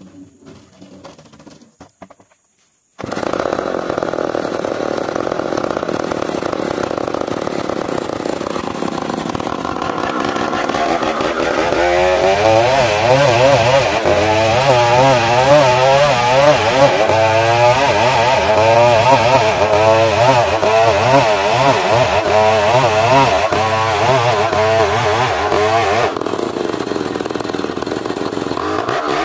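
Old Stihl two-stroke chainsaw ripping lengthwise through a squared ulin (Borneo ironwood) beam. It comes in suddenly about three seconds in, and once the bar is deep in the wood its pitch wavers up and down under load, easing off briefly near the end.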